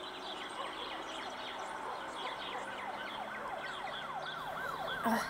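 Emergency-vehicle siren sounding a rapid yelp, its pitch rising and falling about three times a second, layered with fainter overlapping sweeping tones like a busy city soundscape.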